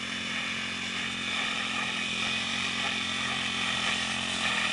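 Brush cutter with a small four-stroke engine running steadily at working speed, its blade spinning.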